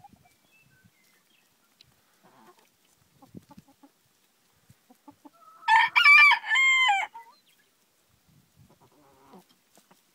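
A rooster crows once, about six seconds in: a single loud call of about a second and a half in two joined parts, falling at the end. Faint, scattered soft clucks from hens feeding close by come before and after it.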